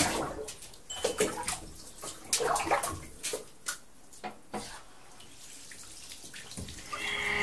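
Bathwater sloshing and splashing in a bathtub, a run of small splashes and drips that dies down after about five seconds. Near the end a mobile phone ringtone starts, a steady electronic tone.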